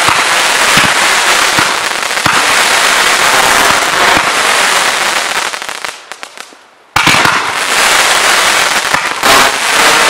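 Professional fireworks display: dense crackling and popping from aerial effects and comets. It dies away about six seconds in, then breaks out again abruptly a second later with more crackling and sharp reports.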